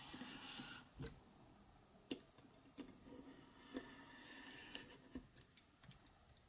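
A small knife blade scraping along the sealed edge of a cardboard iPad box, slitting its wrap, in two faint strokes: one at the start and another about four seconds in. A few light clicks and taps come from the blade and fingers against the box.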